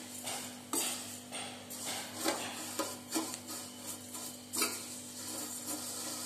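A metal spoon stirring vermicelli roasted in ghee in a stainless steel kadai, scraping and clinking against the pan in repeated strokes about once or twice a second.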